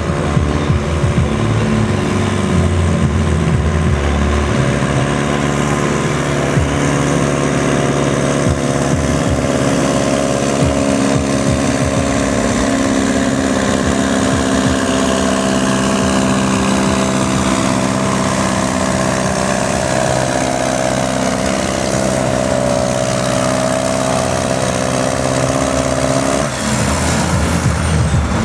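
Old tractor's engine working hard under load as it drags a weight-transfer pulling sled, holding a steady note. Near the end the engine note drops away abruptly.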